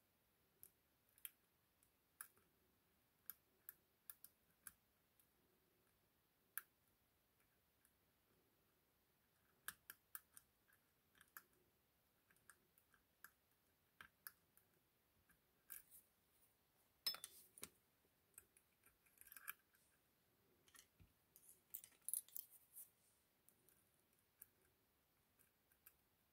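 Lock pick clicking and scraping inside an ASSA 6000 lock cylinder as the pins are worked under tension: faint, irregular sharp ticks, with denser scraping rattles about 17 seconds in and again around 19 to 23 seconds.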